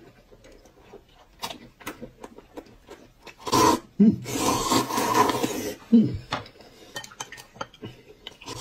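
A person slurping noodles loudly from a bowl, in one long slurp from about three and a half seconds in to about six seconds. Light clicks of chopsticks against bowls come before and after it.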